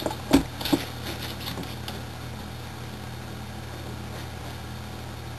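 Two short thumps in the first second, then a steady low electrical hum with faint hiss: room tone with nothing happening.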